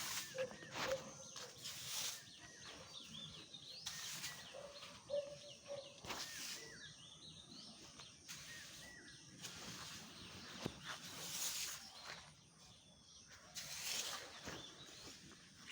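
Outdoor background noise with short bird chirps scattered through it, a few brief held tones, and occasional sharp rustles.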